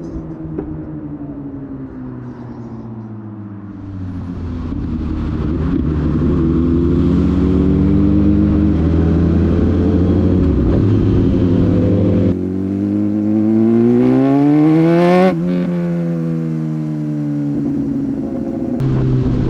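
Sport motorcycle engine under way: it eases off, then pulls hard with its pitch climbing. The pitch drops suddenly at each upshift, about 12 seconds in and again about 15 seconds in, then falls as the throttle rolls off.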